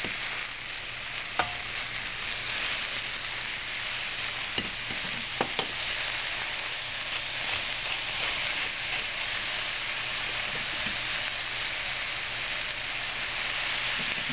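Vegetables (capsicum, zucchini and Chinese cabbage) sizzling in a hot stainless steel pot as a steady hiss. A few light knocks sound in the first six seconds as the vegetables are handled in the pot.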